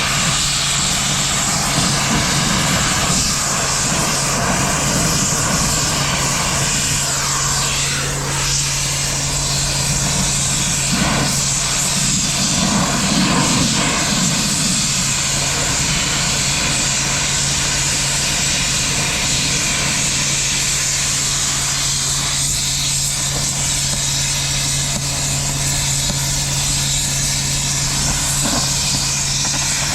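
A large engine running steadily at a constant speed, a low hum with a hissing roar over it and a few faint knocks.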